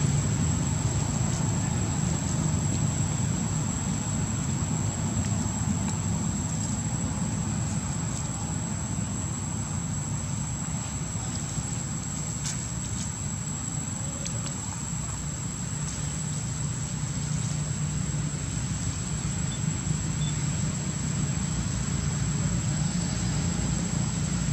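Steady outdoor background noise: a constant low rumble with a thin, unbroken high-pitched whine over it and a few faint clicks near the middle.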